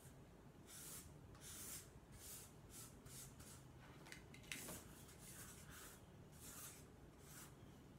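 Felt-tip marker drawing on a paper presentation pad: a dozen or so short, faint scratchy swishes, one or two a second, with one sharper tick about halfway through.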